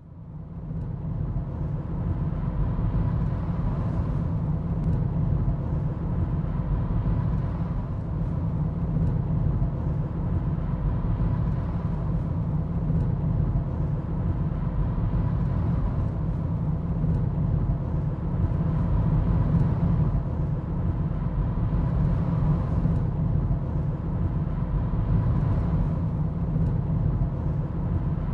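Steady low road and engine rumble inside a moving car's cabin, fading in over the first second or two.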